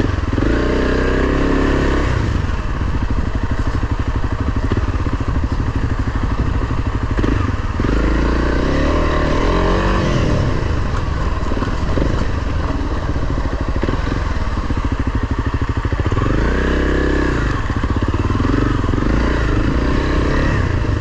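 Honda CRF300 Rally's single-cylinder four-stroke engine running under way, revving up three times, shortly after the start, about eight seconds in and about sixteen seconds in, with steadier running between.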